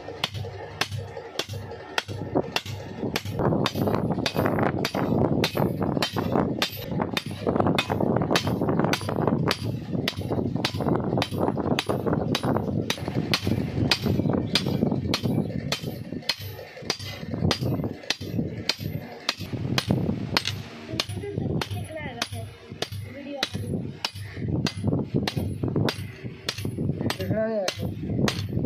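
Hammer blows on a steel chaff cutter blade, a steady run of sharp strikes about two a second, as the blade edge is hammered out to sharpen it.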